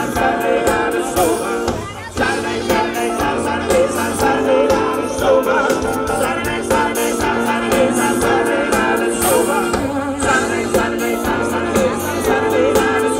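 Live band playing a song with a singer, over a steady drum beat; the music drops back briefly about two seconds in.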